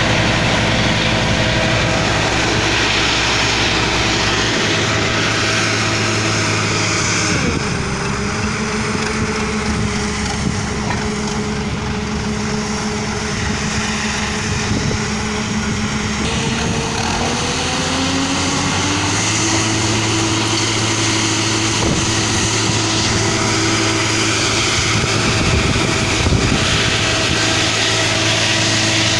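Truck-mounted well-drilling rig running steadily, its engine note dropping sharply about seven seconds in and climbing back up a few seconds after the midpoint. A hiss of water and mud spraying out of the borehole around the drill pipe runs along with it.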